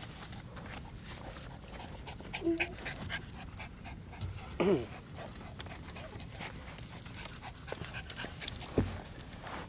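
A dog gives a short whine about halfway through, with scattered light clicks and taps around it.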